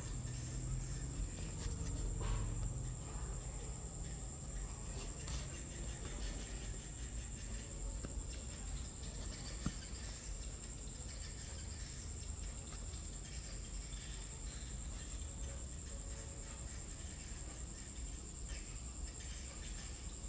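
A steady, unbroken high-pitched insect trill, heard over a low rumble.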